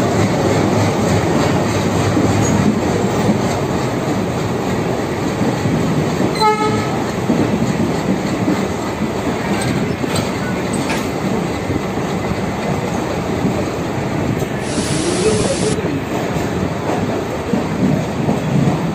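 Battery-powered toy diesel locomotive running along plastic track, a steady rattling whir of its motor and wheels, pulling a matchstick coach. A short pitched tone sounds about six and a half seconds in.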